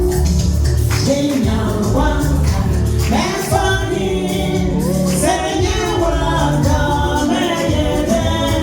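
Live gospel music: voices singing over a band with a strong bass line.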